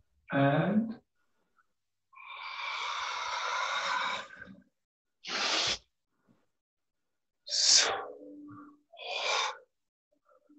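A person breathing hard while dancing: one long, audible out-breath of about two and a half seconds, then three short, sharp breaths, the loudest about three quarters of the way through.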